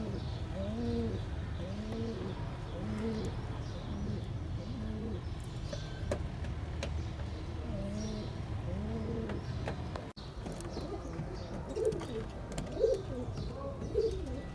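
Domestic fancy pigeons cooing in a breeding loft: repeated rounded coos in runs, several birds overlapping, with louder coos near the end.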